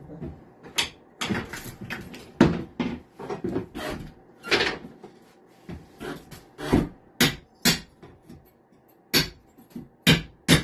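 A small metal hand tool prying and scraping at wooden floorboards and plywood subfloor, making an irregular series of sharp clacks and short scrapes as the flooring is worked loose.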